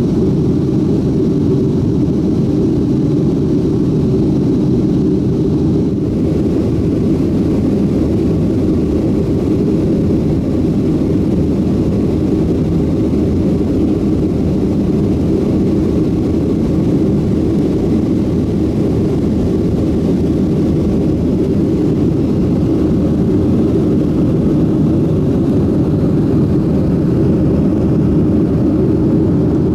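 Steady cabin noise of a Boeing 737-700 in its climb after takeoff: a constant deep drone of its CFM56 jet engines and airflow, heard from inside the cabin.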